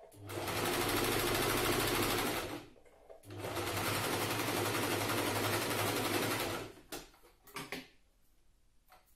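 Janome electric sewing machine stitching through fabric in two steady runs, the first about two and a half seconds and the second about three and a half, with a brief stop between. A few light taps follow after the machine stops.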